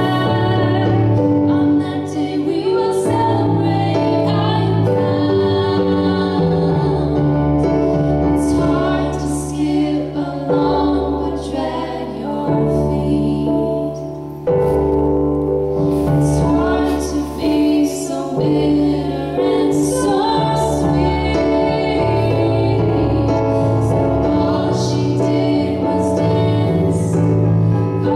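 A woman singing a Christian song live, with instrumental accompaniment.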